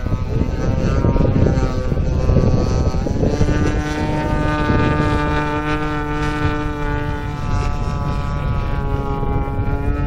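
Radio-controlled Extra 260 model aerobatic plane's engine and propeller running in flight, a steady drone. Its pitch steps up about three seconds in and sinks slowly near the end.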